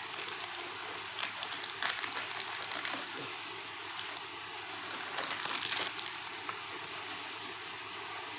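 Crinkling and rustling, as of plastic packaging being handled, in a few short bursts about a second in and again around five seconds in, over a steady hiss.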